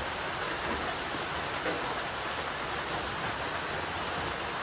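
A steady, even rain-like hiss.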